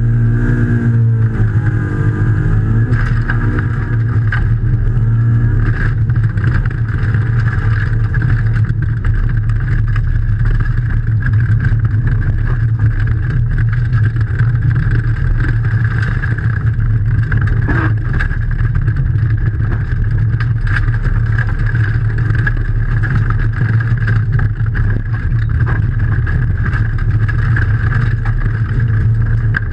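Rally car's engine running hard at speed, heard from inside the cabin, with road and tyre noise and scattered knocks from the car being driven over rough surfaces.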